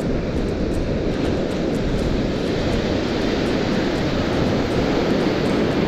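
Steady low rush of wind buffeting the microphone, mixed with breaking surf.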